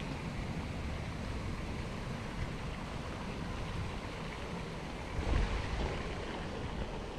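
Wind buffeting the microphone as a steady low rumble, with a stronger gust about five seconds in.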